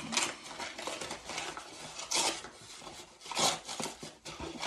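Hands handling toilet-tank parts while the flapper is being changed: irregular clicks, knocks and rustles of plastic and rubber pieces, with a couple of louder clatters in the middle.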